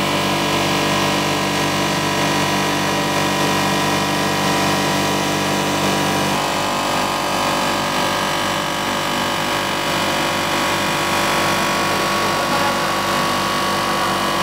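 Blown film extrusion line running: a steady machine hum with several steady tones held throughout. The low part of the sound shifts abruptly about six seconds in.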